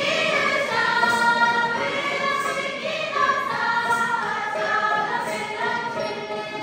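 A group of voices singing a Tibetan folk song together in phrases, accompanied by plucked long-necked lutes.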